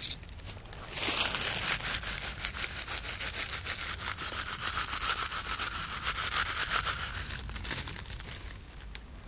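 Leaves being rustled and crumpled by hand close to the microphones: a rapid, continuous crackling that starts about a second in and eases off near the end.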